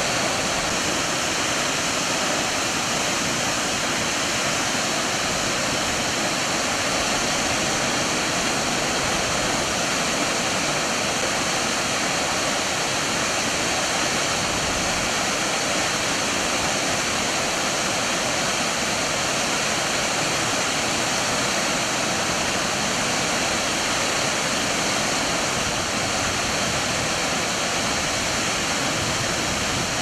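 A tall waterfall's water plunging and crashing down the rock face, a steady, unbroken rush.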